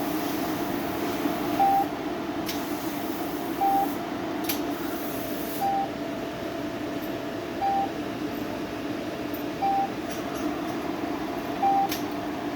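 Palomar StarLux 500 system with a MaxG handpiece running: a steady hum, with a short beep about every two seconds, six in all, and a few sharp clicks in between.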